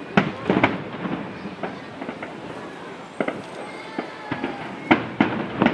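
Aerial firework shells bursting in a quick series of sharp bangs. The bangs come in clusters, three near the start and three near the end, with smaller pops between.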